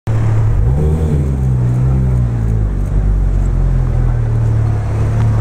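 Porsche 911 GT3 RS's flat-six engine running through a titanium iPE exhaust as the car rolls slowly past, a loud low drone. Its pitch rises briefly about half a second in, then holds steady.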